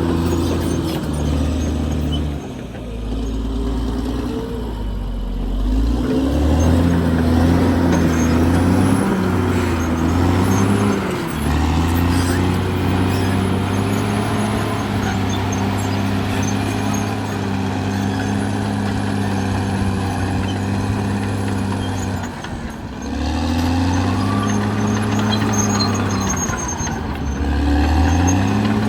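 Caterpillar D6R XL bulldozer's diesel engine running at working speed, its pitch dropping and coming back up several times as the dozer works.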